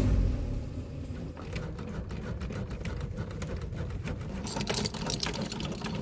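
Car engine cranking on the starter without catching: a rapid mechanical ticking over a low rumble that grows denser in the last second or so, as the engine won't start.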